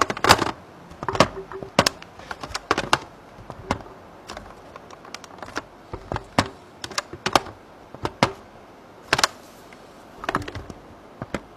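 Irregular clicks and taps, one or two a second, some in quick clusters, as keys or buttons are pressed during a dropped call connection.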